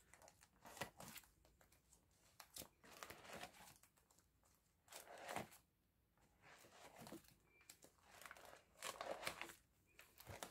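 Faint crinkling and rustling of plastic, on and off, as binder pocket pages and photocard sleeves are handled.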